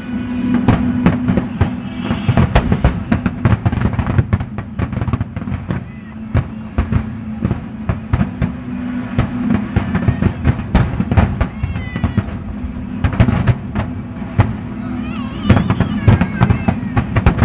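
Large fireworks display: a rapid, continuous barrage of bursting shells and crackles, with music playing underneath.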